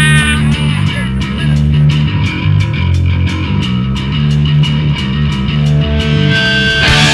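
Rock music soundtrack: bass and guitar over a steady beat with regular cymbal ticks. Just before the end a loud, dense distorted-guitar section comes in.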